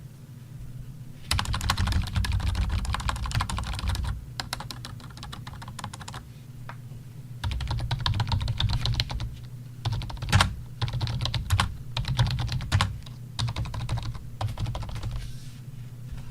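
Logitech K400 Plus wireless keyboard being typed on quickly: rapid key clicks in two long runs with a short pause between, and one louder key strike partway through.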